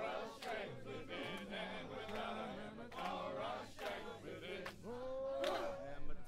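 A crowd singing a chant together in unison, many voices moving up and down in pitch, with one note held briefly about five seconds in.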